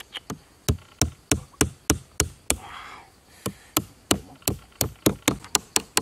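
A nail being hammered into a bamboo crosspiece, about nine sharp knocks at roughly three a second. After a short break near the middle come about ten quicker knocks that speed up toward the end.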